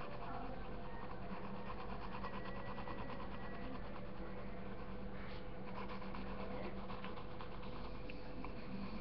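Pencil shading on paper: rapid back-and-forth scratching strokes of the graphite across the sheet, over a faint steady low hum.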